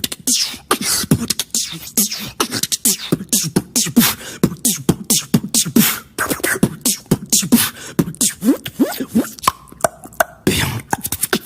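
A person beatboxing: a fast run of mouth-made percussive clicks and hiss-like hits, mixed with short voiced sounds that slide down in pitch, with a brief break near the end.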